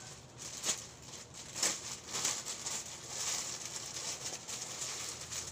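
Plastic mailer bag and bubble wrap crinkling and rustling as a parcel is unpacked by hand, with sharper crackles about a second in and again just before two seconds.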